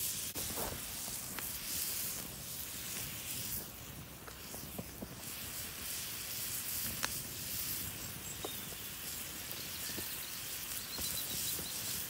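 Food sizzling in a frying pan: a steady hiss with a few small clicks and pops.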